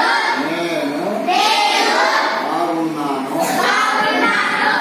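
A class of children reciting aloud together in a sing-song chant, in Telugu, phrase by phrase.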